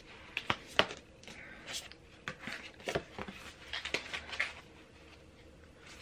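Oracle cards handled and flipped through by hand: a scatter of light clicks and brushing sounds of card on card, dying away about four and a half seconds in.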